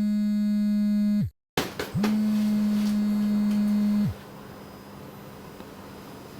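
Two long, steady electronic tones, each about two seconds long, with a few clicks in the short gap between them; then only a low steady hiss.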